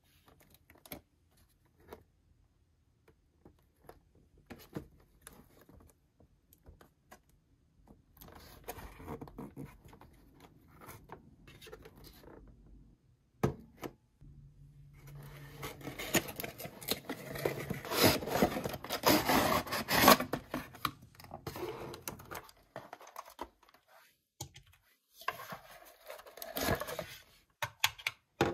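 Hands unpacking and handling a toy in its packaging: scratching, scraping and rustling with scattered clicks, busiest and loudest through the middle.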